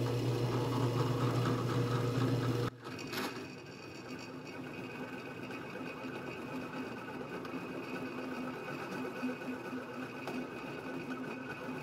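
Drill press running a 2-inch boring head with a carbide-tipped boring bar, cutting a bore in a steel hinge part. A steady hum drops abruptly to a quieter, steady running sound about three seconds in, with a little chatter from the drill press's lack of rigidity.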